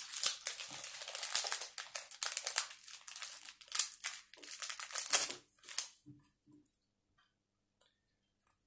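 Foil Pokémon card booster pack wrapper being crinkled and torn open, a dense crackly rustling that stops about six seconds in.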